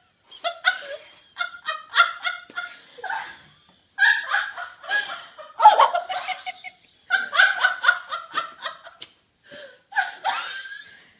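People laughing hard in fits, in four long runs of breathy, pulsing laughter with short pauses between them.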